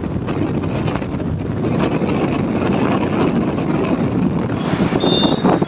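Wind buffeting the microphone over the steady engine and road noise of a motorcycle ridden at speed, with a few brief high-pitched tones near the end.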